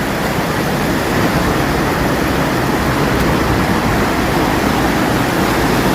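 Fast, cold glacier-fed mountain stream rushing: a loud, steady roar of water.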